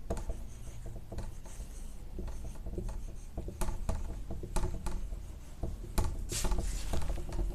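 Marker pen writing on a whiteboard: a string of short, irregular strokes, squeaks and taps as the letters are written.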